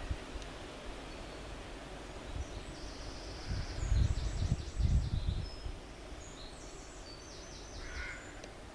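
A small bird singing short, high-pitched phrases of rapidly repeated notes, twice, over outdoor background noise. Low rumbling bumps, like wind on the microphone, come in about halfway through.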